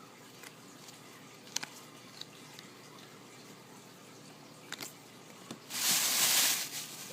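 Packaging being handled: a few light clicks and taps, then about a second of loud rustling near the end.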